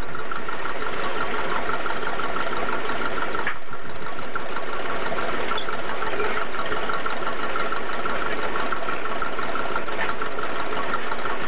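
Off-road vehicle engine running steadily at idle, with no revving.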